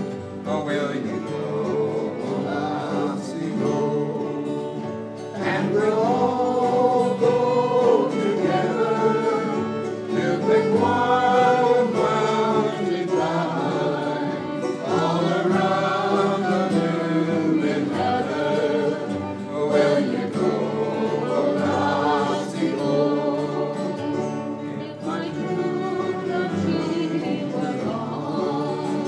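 Acoustic folk jam band playing a tune: a fiddle carries the melody over strummed acoustic guitars.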